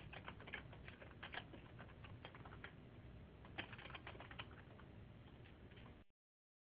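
Faint typing on a computer keyboard: irregular key clicks over a low hum, cutting off abruptly about six seconds in.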